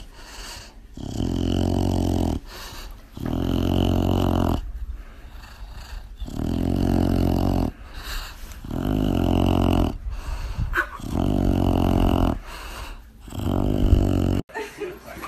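Bulldog making a series of loud, low growling grunts, about six of them, each lasting just over a second, one every two seconds or so.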